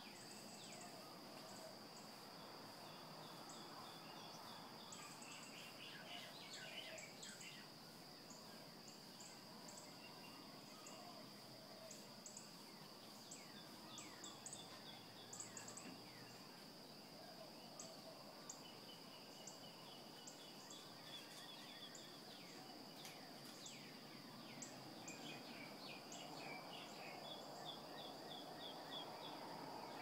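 Faint dawn chorus of many birds chirping, trilling and giving quick falling whistles, over a steady high-pitched drone.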